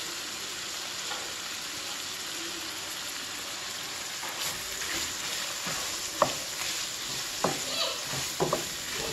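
Stir-fry of shrimp, chicken and egg sizzling in a frying pan with a steady hiss. About halfway in, a wooden spatula starts stirring and scraping the pan, knocking sharply against it several times.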